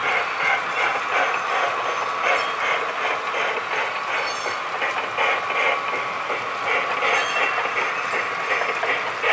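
SoundTraxx SoundCar decoders in a model freight train's cars playing rail-joint clickety-clack as the train rolls past, a rhythmic clicking with a thin steady tone over it.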